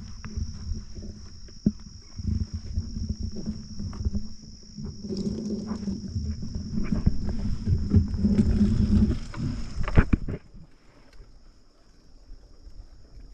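Fat-tire bike rolling over a bumpy sandy trail: rumbling tyres, rattles and knocks, with a steady low hum. The rumble builds and then drops away suddenly about ten seconds in, while a steady high-pitched insect drone goes on throughout.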